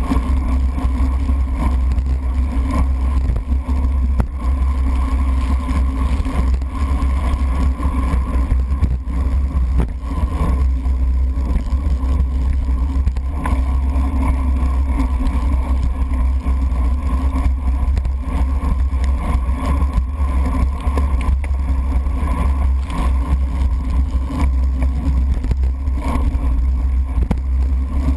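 Steady, muffled low rumble of wind and tyre noise from a road bike racing on a wet road, heard through a GoPro's sealed waterproof housing mounted on the bicycle.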